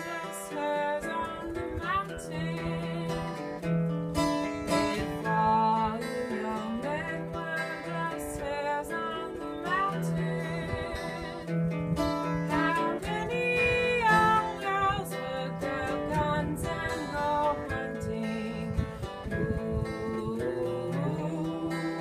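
Acoustic guitar playing with a singing voice: a folk song.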